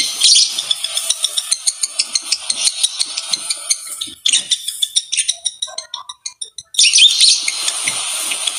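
Lovebird chattering in rapid, shrill chirps and clicks. Around the middle it thins to a few sparse chirps, then picks up again.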